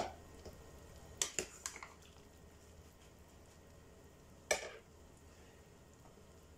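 Metal cookware clinking: a pot lid set down on the gas stove with a clank, a quick run of several metal spoon clinks against the pot about a second later, and one more clank about four and a half seconds in as the spoon is laid down.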